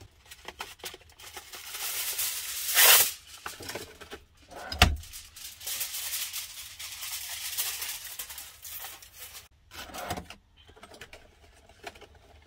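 A propane stove burner being turned on and pots handled: a hissing rush that peaks about three seconds in, a sharp knock near five seconds, then more hiss and light clatter.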